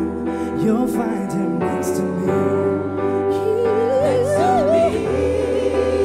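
Live band music: a male lead singer holding long, sliding notes over sustained keyboard chords, with backing singers.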